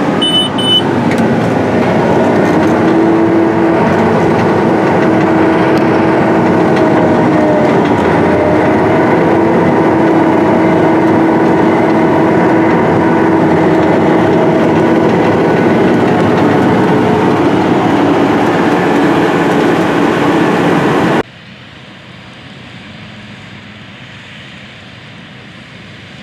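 A 620 hp Case IH Steiger Quadtrac's diesel engine is heard from inside the cab, working under heavy load as it pulls a nine-shank ripper through very hard, dry ground. It is a loud, steady drone with a slight rise and fall in pitch. About 21 seconds in, it cuts to a much quieter, more distant sound of the same tractor working in the field.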